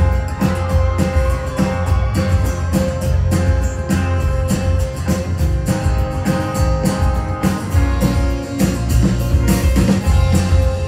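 Live rock band playing an instrumental passage without vocals: electric guitar, bass guitar and acoustic guitar over a steady drum-kit beat.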